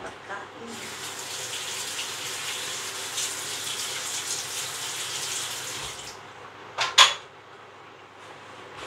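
Kitchen tap running into a sink for about five seconds, then shut off, followed by two sharp clatters in quick succession.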